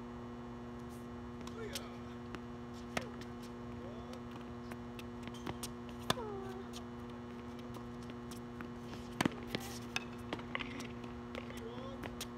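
Tennis balls struck by rackets and bouncing on a hard court, a sharp pop every second or so, over a steady electrical hum.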